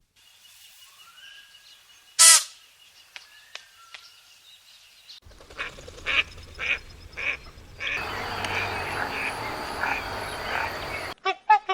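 Animal calls in a run of separate clips cut together: one loud short call about two seconds in, then a row of evenly spaced calls, then a dense noisy chorus, and a new burst of rapid calls near the end.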